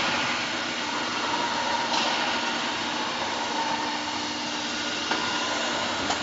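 Steady rushing blow of the hot-air guns on a CNC PVC window-profile bending machine, over a faint machine hum, with a few light clicks.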